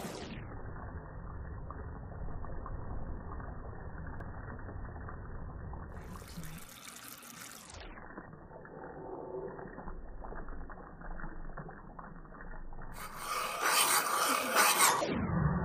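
Sugar syrup bubbling in a saucepan as it is stirred with a metal spoon, in slowed-down slow-motion audio, so it sounds muffled and low for most of the time. Near the end it becomes louder and clearer for a couple of seconds.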